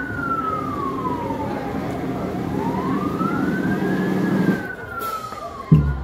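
Emergency-vehicle siren wailing, rising and falling slowly in pitch about twice, over a steady low rumble. A loud low thump comes near the end.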